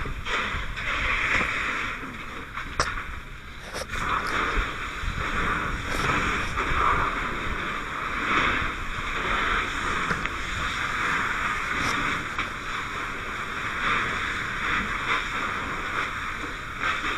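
Firefighting hose stream spraying water, a steady rushing hiss that swells and fades, with a few sharp knocks in the first few seconds.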